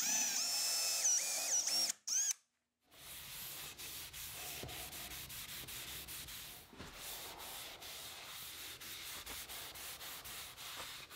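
A drill with a Forstner bit boring a finger hole in cherry wood, its motor whine rising and falling for about two seconds. After a brief pause, a cloth rag rubs finish onto the cherry stool in quick repeated strokes.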